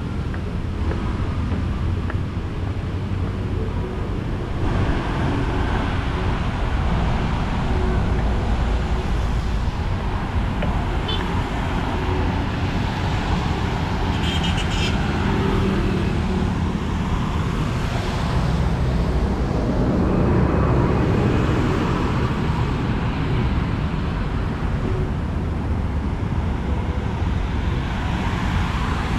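Steady road traffic on a busy multi-lane city road, cars and motorbikes passing on wet asphalt. It grows a little louder about five seconds in and swells briefly around twenty seconds in as vehicles pass close.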